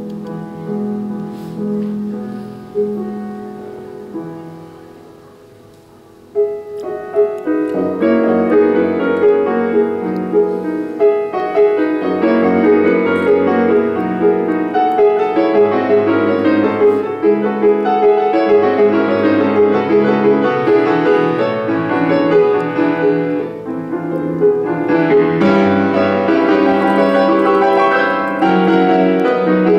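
Yamaha grand piano played live in a classical recital: a soft passage whose notes die away over the first several seconds, then a sudden loud entry about six seconds in and dense, fast playing for the rest.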